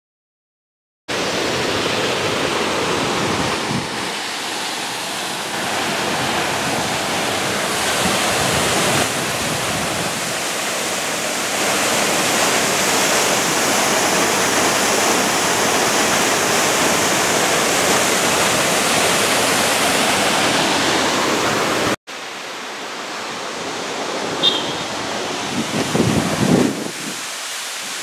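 Waterfall rushing steadily, starting after a second of silence. After a cut about twenty-two seconds in the rush is quieter, with one brief high chirp and a few low buffets near the end.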